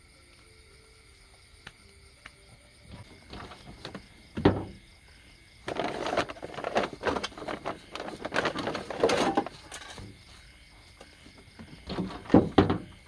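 Rummaging in the storage box under an auto-rickshaw's seat: a sharp thump, then several seconds of a plastic package crackling as it is handled, and near the end the seat cushion dropped back with a couple of loud knocks. Insects trill steadily in the background.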